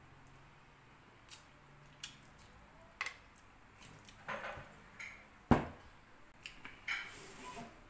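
Close-up eating sounds of a person eating duck adobo and rice by hand: scattered small clicks and soft squishes of fingers working the food on a plate, with mouth sounds of chewing. A single sharp knock about five and a half seconds in is the loudest sound.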